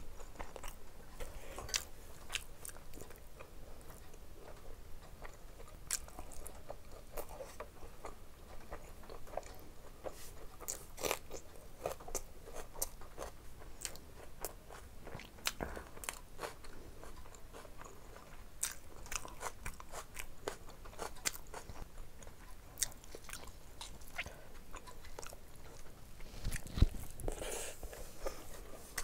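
Close-up eating sounds of rice and curry eaten by hand: wet chewing and lip smacks with many small clicks, and the squelch of fingers mixing rice and gravy. A single louder thump near the end.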